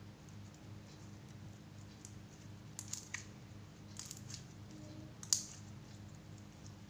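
A few small, sharp clicks and crackles from hands working slime-making materials, in two clusters around three and four seconds in and a single louder click just after five seconds, over a low steady hum.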